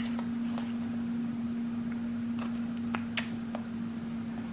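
A steady low hum from a running machine, with a few light clicks and taps, the sharpest about three seconds in.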